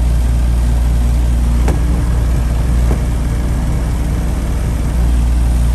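Outdoor unit of an ICP 3-ton heat pump running: the compressor and condenser fan make a steady hum, with two light clicks about two and three seconds in.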